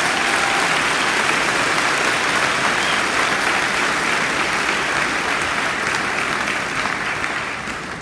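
Audience applauding, a steady round of clapping that begins to fade near the end.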